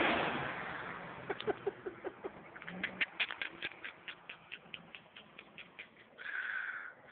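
Ford F-350 diesel pickup's engine fading away as the truck drives off, followed by a quiet string of short high chirps, about five a second, lasting a few seconds.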